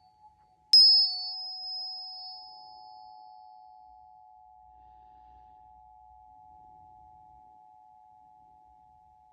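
Two Soma Energetics solfeggio tuning forks, 852 Hz and 639 Hz, ringing together as a steady two-note tone. About a second in, a fork is struck with a sharp metallic ping whose bright high overtone fades within about three seconds. Both tones then slowly die away.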